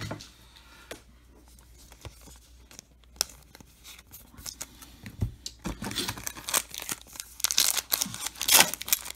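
A stack of glossy chrome trading cards being handled and slid apart in the fingers: a few soft clicks at first, then scratchy rustling as card slides and scrapes against card over the last few seconds.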